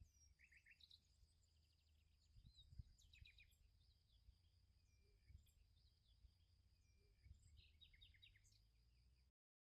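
Faint outdoor ambience of birds chirping and trilling over a steady high tone and a low rumble, cutting off suddenly into silence near the end.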